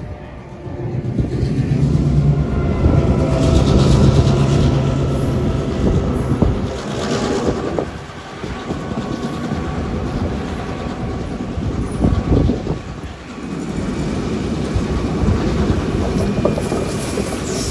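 Heritage passenger train rolling past on the line below, its carriage wheels clicking over the rail joints, with a low steady hum in the first few seconds.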